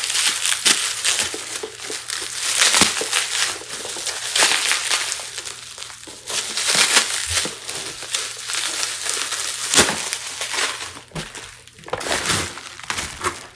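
Shipping packaging being handled and pulled apart: continuous crinkling and crunching of cardboard and packing material, with scattered sharp crackles and knocks.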